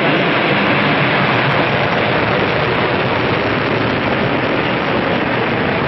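H-IIA 202 rocket lifting off, its first-stage engine and two SRB-A solid rocket boosters firing: a loud, steady rushing rumble of rocket exhaust.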